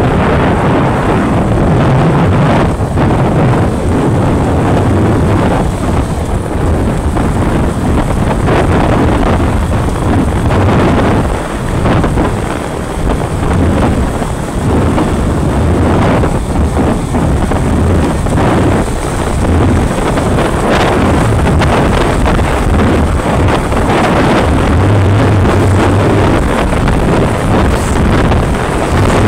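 Loud, steady wind buffeting on the phone's microphone from riding a moving motorcycle, with the motorcycle's engine and road noise running underneath.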